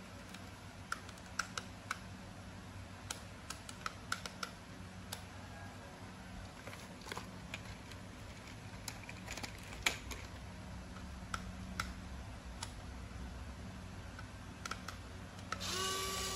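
Scattered light plastic clicks and taps from handling a toy remote-control tractor and its handheld controller. About a second before the end, a louder sound with a few steady tones begins.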